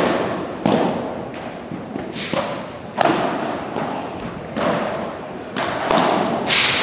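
Padel rally: the ball is struck by solid paddle rackets and bounces off the court and glass walls, a string of sharp pops about every half second to second, each echoing in a large hall.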